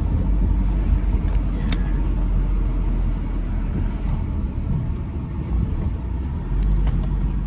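Steady low rumble of a moving road vehicle, with a single sharp click a little under two seconds in.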